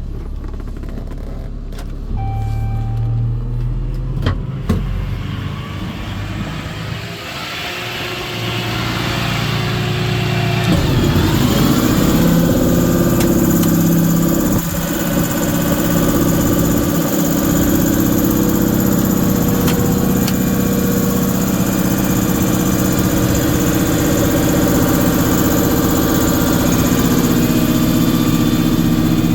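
Cummins turbo-diesel engine of a Ram 4500 truck running, with a few sharp clicks in the first seconds. About eleven seconds in, a louder, steady mechanical hum comes in and holds.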